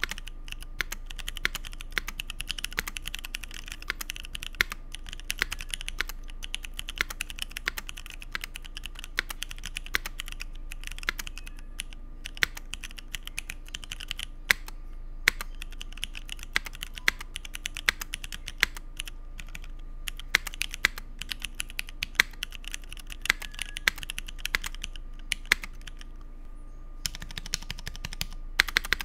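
Continuous typing on a Keycult 1/60 mechanical keyboard with C3 Equalz Dragonfruit tactile switches in an aluminum plate under GMK keycaps, a fast run of key clacks. Near the end the typing stops briefly, then resumes louder.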